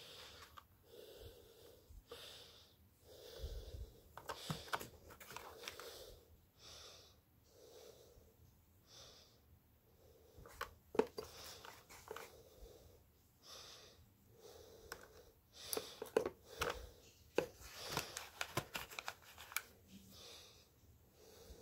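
Clicks and taps of small items being picked up and set down in a hard clarinet case, the sharpest about halfway through and a cluster near the end, over soft breathing close to the microphone, about one breath a second.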